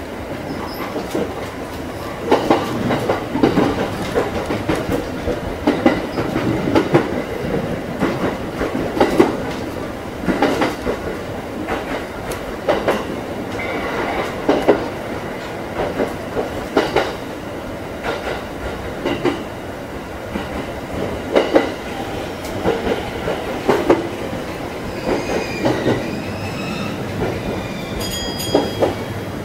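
JR East E231-series electric commuter train running, heard from inside its leading car: a steady rolling rumble with wheels clacking over rail joints, a sharp beat every second or two. Brief high-pitched tones come in near the end as it runs into the station.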